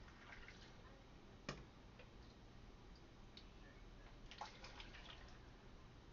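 Faint drips and light clicks of pickling liquid being poured into glass canning jars, with one sharper click about a second and a half in and a small cluster of clicks a little later.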